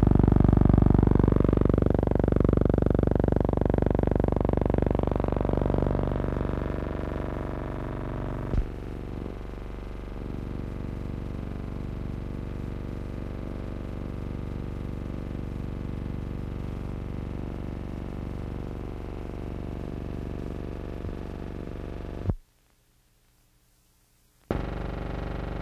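A steady electronic drone of several held tones, like a synthesizer, with a wavering tone rising over the first few seconds. It is louder for the first eight seconds, then quieter, and drops out to near silence for about two seconds near the end.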